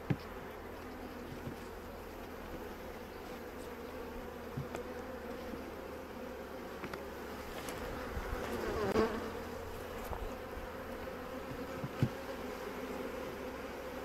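Honeybees from a large, strong colony buzzing steadily over an open hive, one continuous hum. The hum swells briefly about two-thirds of the way in, and there is a single sharp tap near the end.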